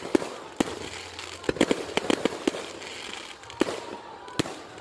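Aerial fireworks shells bursting: a string of sharp bangs at irregular intervals, several coming in quick clusters.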